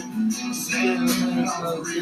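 Music with guitar, with no words sung.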